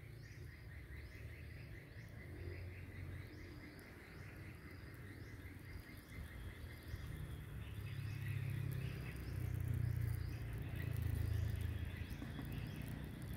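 Outdoor garden ambience: insects chirring in a fast pulsing trill, with a short high chirp repeating about once a second through the first half. A low rumble swells up in the second half and becomes the loudest sound.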